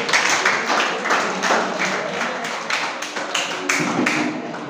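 An audience clapping together in a steady rhythm, about four claps a second.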